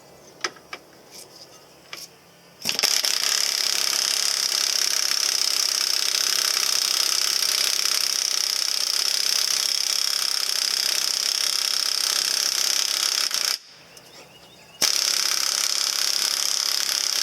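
Power impact wrench running steadily on the tie rod end's aircraft-type locking nut, which is hard to spin all the way off. A few light clicks come first; the wrench starts about three seconds in, stops for about a second near the end, then runs again.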